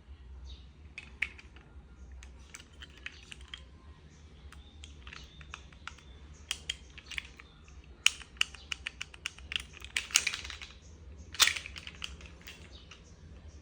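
Small sharp plastic clicks and rattles from a miniature Colt 1908 airsoft spring pistol being handled. They come in scattered clusters, with a quick run of clicks about two-thirds of the way through and one louder click a little later.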